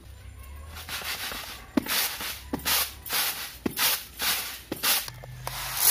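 Raw rice being tossed on a woven bamboo winnowing tray: a rhythmic rushing swish with a light knock about once a second as the grains are thrown up and land back on the bamboo, the usual way of cleaning rice of husk and grit. A louder, steady rushing noise sets in right at the end.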